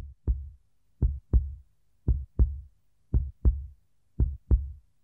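Heartbeat sound effect: five double low thumps, lub-dub, about one a second, with silence between.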